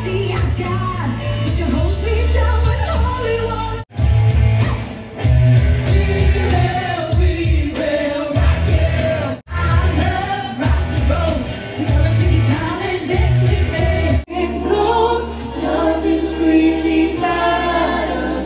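Music from a rock-and-roll stage show: singing over a band track with a heavy pulsing bass beat. It cuts off sharply three times, and about fourteen seconds in it turns to a steady held bass under sustained sung chords.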